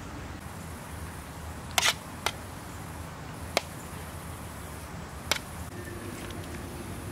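A few sharp, separate clicks or knocks, irregularly spaced over about three and a half seconds, over a steady low background noise. The loudest click is the first, about two seconds in. A faint steady hum comes in near the end.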